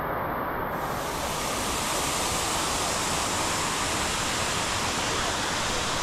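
Steady roar of the Steinsdalsfossen waterfall, a full, even rush of falling water. It grows brighter and hissier a little under a second in.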